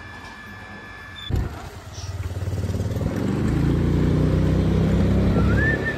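Motor scooter engine pulling away and then running steadily under way, heard from the rider's seat, rising in level over a second or so before it settles. A thump about a second in.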